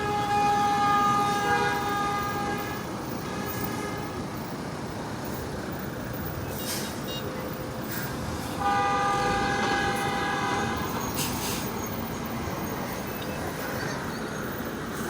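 A vehicle horn blows two long blasts, the first lasting about three seconds and the second, near the middle, about two seconds, over a steady rumble of road traffic.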